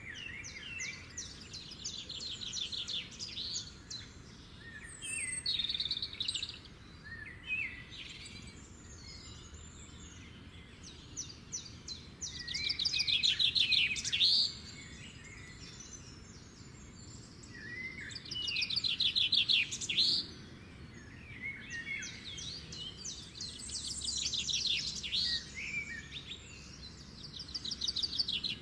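Songbirds singing: phrases of fast trilled notes and chirps, the loudest long trills about twelve and nineteen seconds in.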